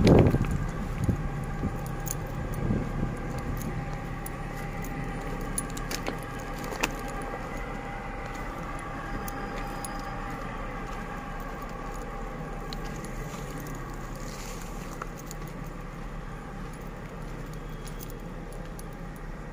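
Container train running away along a curving track: steady metallic ringing from the wheels and rails with scattered sharp clicks, slowly fading. A loud low rumble comes at the very start.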